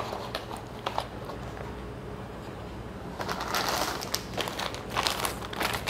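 A couple of light taps as items are set down, then from about three seconds in a plastic courier mailer bag rustling and crinkling as it is picked up and handled.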